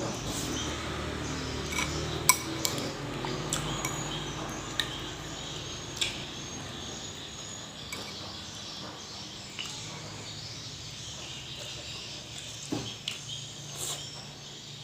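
Scattered sharp clinks and taps of eating utensils against a plate, several in the first few seconds and a small cluster near the end, over a low steady hum.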